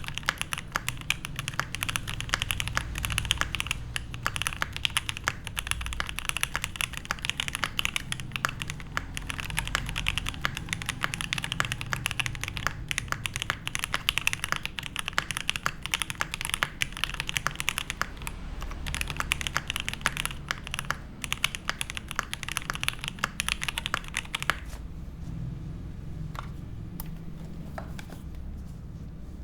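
Fast, continuous typing on a Mammoth75 gasket-mount mechanical keyboard with lubed Gateron Black Ink v2 linear switches, an FR4 plate and GMK keycaps. About five seconds before the end the typing stops, and only a few single keystrokes follow.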